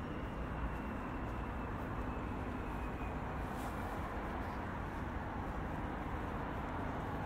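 Steady outdoor city ambience: a low, even rumble of distant traffic. A faint high tone slowly falls early on, and a brief high hiss comes about three and a half seconds in.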